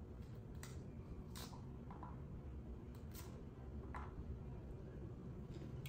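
A few faint, short clicks and ticks, about five spread over several seconds, from a knife and a piece of fruit being handled at a table, over a low steady hum.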